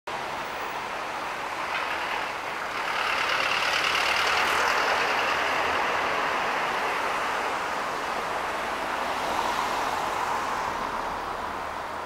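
Street traffic noise: a passing vehicle, its sound swelling about three seconds in and slowly fading.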